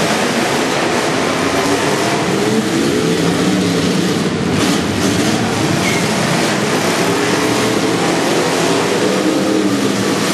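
Several demolition derby cars' engines revving hard, their pitch repeatedly rising and falling, with a few crashes about halfway through as the cars ram into each other.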